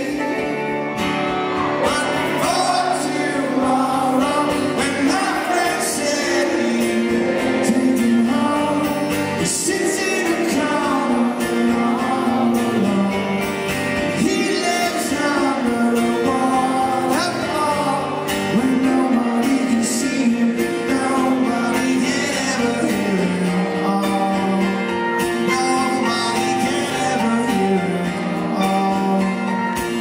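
Live song performance: a man singing into a microphone over his own strummed acoustic guitar.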